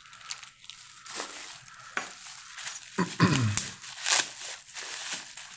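Plastic bubble wrap crinkling and crackling in irregular bursts as hands unwrap a bicycle brake caliper from it.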